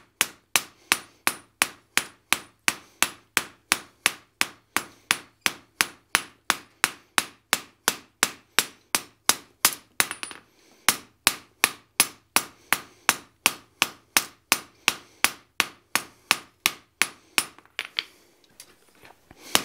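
Hand hammer striking a hot steel bar on the anvil face in a steady rhythm of about three blows a second, rounding up a section forged to an octagon. The blows pause briefly about ten seconds in, then resume and stop shortly before the end.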